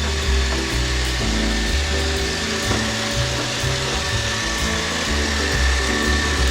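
iRobot Roomba 675 robot vacuum running on the floor: its motors and freshly replaced side-brush spinning with a steady whirring hum.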